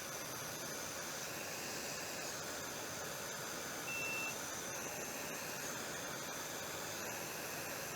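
Hot air rework station blowing with a steady hiss, and one short high electronic beep about four seconds in.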